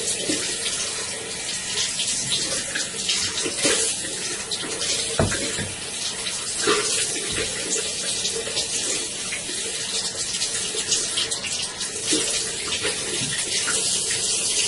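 Water running from a bathroom tap into a sink while hands are washed under the stream, with irregular splashes throughout.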